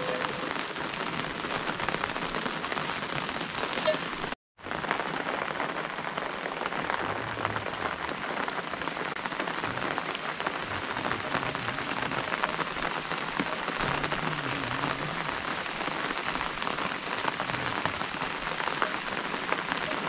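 Steady rain falling, a dense even patter that drops out for a moment about four and a half seconds in.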